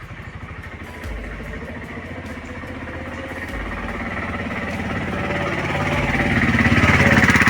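A small motor-vehicle engine running with a fast, even pulse, growing steadily louder through the second half.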